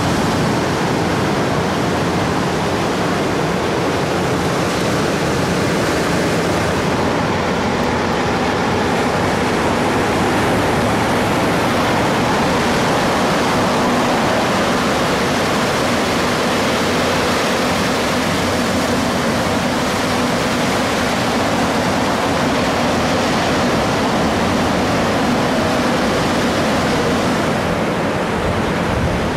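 Ocean surf breaking and washing in, a loud, steady rush of water that does not let up.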